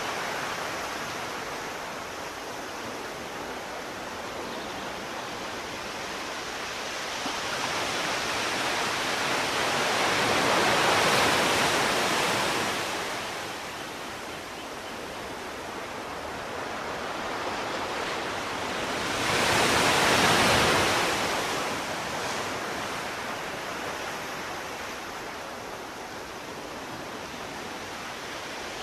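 Ocean waves washing onto a shore: a steady hiss of surf with two waves swelling and breaking, about ten seconds in and, louder, about twenty seconds in.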